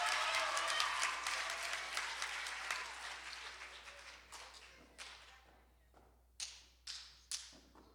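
Audience applause fading out over about four seconds, then a few scattered single claps.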